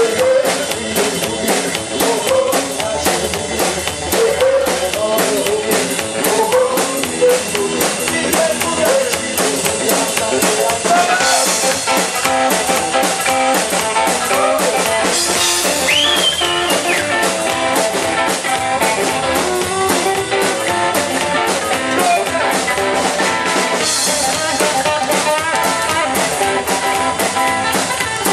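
Live band music: an upright double bass, an electric guitar and a drum kit playing a steady beat.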